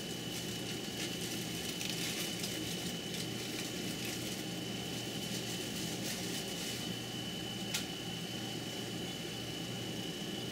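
Steady mechanical hum with a thin, constant high whine over it, and one short click about three-quarters of the way through.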